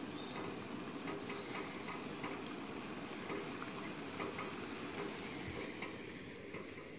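Bacon sizzling in a frying pan on a two-burner camp stove: a steady hiss with scattered small pops and crackles.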